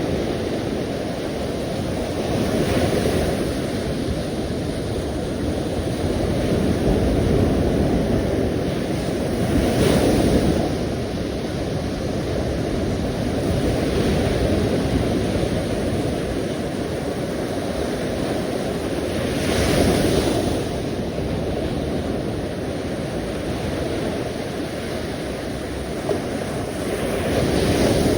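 Sea surf: a steady rush of waves, with a wave breaking and swelling louder every several seconds, four times.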